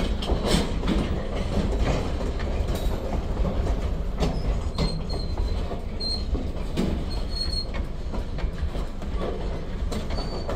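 Freight train of loaded centerbeam flatcars rolling by: a steady rumble of steel wheels on rail, with scattered clicks over the rail joints and a few brief high-pitched wheel squeals about halfway through.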